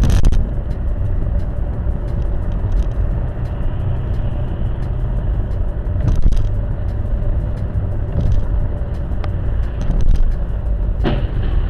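Car running down the road heard from inside the cabin: a steady low rumble of engine and tyre noise with a faint hum and a few light knocks.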